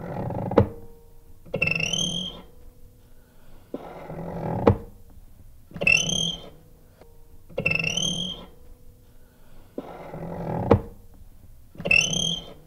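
Gate hinge creaking over and over as the gate swings, about every two seconds. Some swings are a low grinding creak that ends in a sharp knock; others carry a high, wavering squeal.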